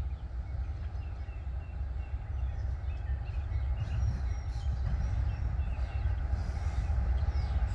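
Diesel freight train approaching: a low, steady rumble that slowly grows louder, with birds chirping over it.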